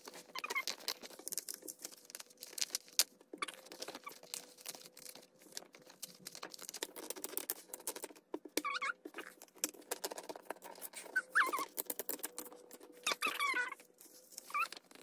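Paper crackling and tearing as the perforated side strips of a PIN mailer are torn off, with several short squeaks in between.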